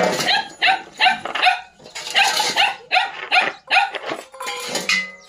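A dog barking over and over in short, sharp barks, two or three a second.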